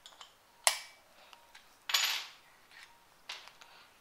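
Small metal clicks and clinks from handling a switched-off mini die grinder while its bit is being changed: a sharp click about two-thirds of a second in, a louder short clatter near the middle, and a few lighter ticks near the end.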